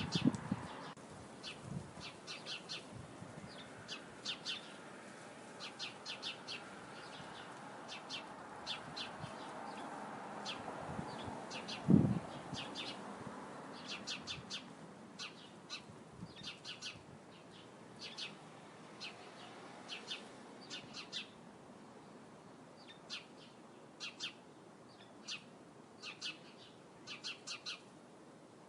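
House sparrows chirping, in short runs of repeated chirps through the whole stretch, over a faint background hum. A single loud low thump comes about twelve seconds in.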